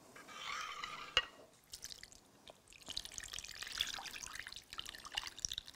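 Thin tomato sauce poured from a plastic bowl over meat patties in a ceramic baking dish, scraped out with a metal spoon: faint liquid splashing and dripping, with a single sharp spoon clink about a second in.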